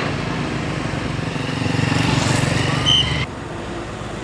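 Road traffic: a vehicle's engine running and growing louder as it passes close by, with a short, shrill blast of a traffic police whistle near the three-second mark. The sound then cuts abruptly to quieter, steady road noise.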